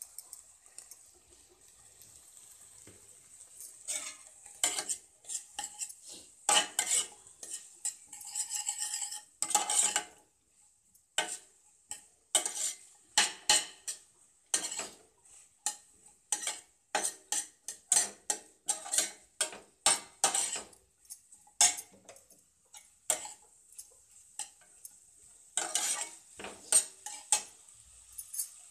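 Spatula scraping and knocking against a stainless steel pan, stirring sliced potatoes as they fry, with a faint sizzle underneath. The strokes come quick and irregular, starting a few seconds in, pausing, then coming again in a short burst near the end.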